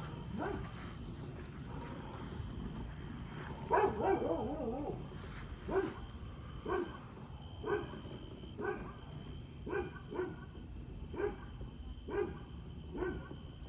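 A dog barking over and over, about once a second, after a longer wavering whine a few seconds in.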